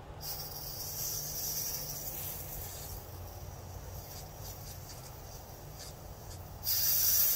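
Compressed air hissing out of an air compressor tank's opened bottom drain valve, blowing out the condensed water that collected in the tank, here still quite a bit despite an aftercooler. The hiss starts right away, eases a little with some sputtering, and gets louder again near the end.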